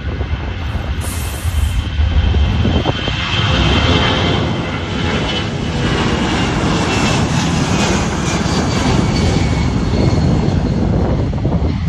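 Boeing C-17 Globemaster III's four turbofan jet engines at high power during a low pass: a loud, continuous rumble with a thin high whine on top, building about two seconds in.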